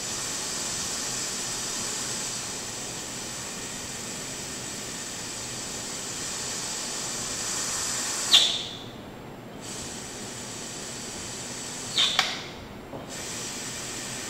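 Gas hissing steadily out of a closed-circuit oxygen breathing apparatus while the drain valve is pressed. The constant metering valve clicks twice, about four seconds apart, and each click cuts the hiss off for about a second before it comes back. The valve opening and closing like this is the check that the constant metering valve is working normally.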